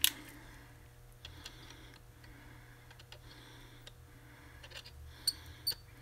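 Solder spool and soldering tools being handled on a workbench. There is a sharp click at the start, then scattered faint ticks, and two light metallic clinks close together near the end, over a faint steady hum.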